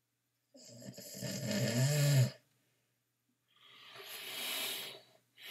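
A person snoring: a rough, low-pitched snore on the in-breath lasting nearly two seconds, then a long breathy out-breath, with the next breath starting at the end.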